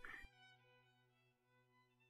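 Near silence with very faint background music on steady held notes, and a brief faint sound at the very start.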